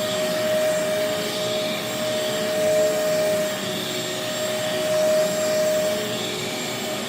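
Bissell DeepClean Professional Pet carpet cleaner running, its suction motor giving a steady high whine over a rush of air, with the trigger held so it sprays water onto the carpet. The rush rises and falls in slow swells.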